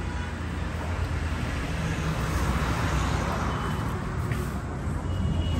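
Road traffic going past: a steady rush and rumble of vehicles that swells as one goes by around the middle.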